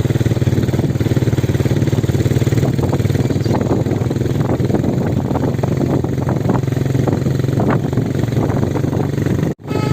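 A vehicle engine running steadily at idle, with a brief dropout near the end.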